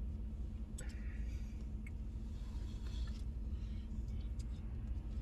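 Steady low rumble of an idling truck heard inside its cab, with a few faint clicks and a brief rustle.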